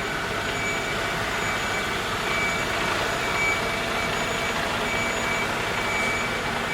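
Steady factory-hall machinery noise with an electronic warning beeper sounding about once a second, like a reversing alarm on moving plant in a truck assembly works.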